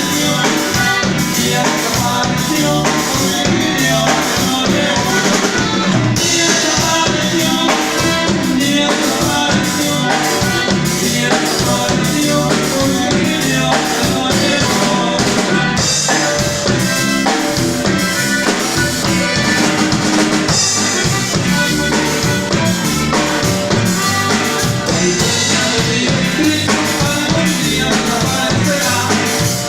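Music with a steady drum-kit beat, snare and bass drum.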